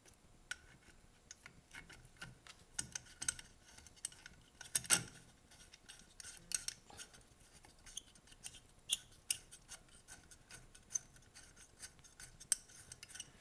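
Metal muffler of a two-stroke trimmer engine being fitted back onto the cylinder by hand: scattered light metallic clicks, taps and rubbing, with a louder clack about five seconds in.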